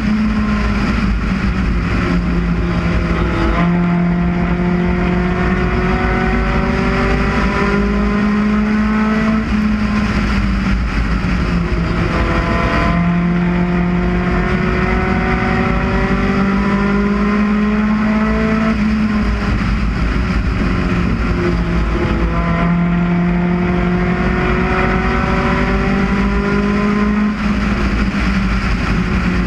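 UCAR race car's engine at racing speed, heard on board: the revs climb steadily along each straight and drop off sharply into each turn, the cycle repeating about every nine and a half seconds, lap after lap.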